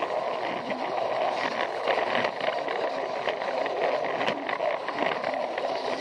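Battery-powered Plarail toy train running along plastic track, heard from right on the train: a steady whirring of its small motor and gearbox with a rapid run of light clicks and rattles from the wheels on the rails.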